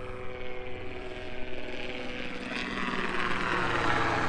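Light helicopter flying over, its rotor and engine growing steadily louder as it comes closer overhead.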